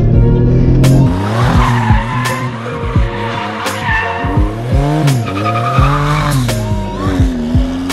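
Twin-turbo V6 Toyota MR2 Spyder revving up and down repeatedly as it slides through a turn, tires squealing. Music with a steady beat runs underneath.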